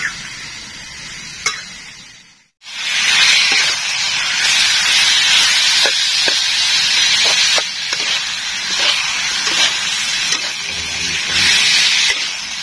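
Bamboo shoots with chilli sizzling in a hot pan. About two and a half seconds in, after a brief break, a much louder steady sizzling hiss sets in as water goes into the hot pan, with a few light knocks.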